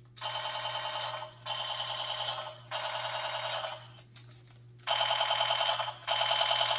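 Electronic sound effect from a Kamen Rider toy blaster: a trilling, ringing electronic tone fired five times, each about a second long, the last two louder.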